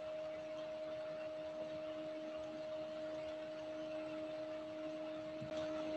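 A steady low hum with two constant tones over a faint even hiss; no speech.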